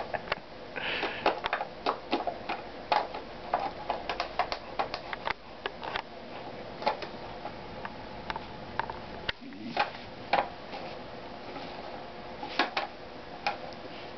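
German shepherd puppy chewing and biting a hard plastic object and a leather shoe: irregular sharp clicks and clacks of teeth on plastic, several a second, with quieter stretches in between.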